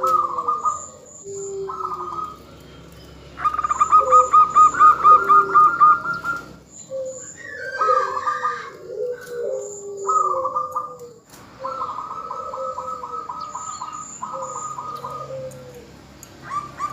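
Zebra doves (perkutut) calling, in what is billed as a female's call to draw males into song. Bursts of fast staccato notes at about four to five a second come and go, the longest lasting a few seconds, with lower gliding coos underneath.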